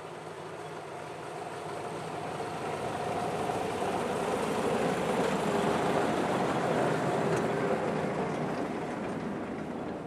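Narrow-gauge Hunslet diesel locomotive running as it comes up and passes close by, hauling a flat wagon. Its engine and rolling noise grow louder to a peak about six seconds in, then fade as it goes away.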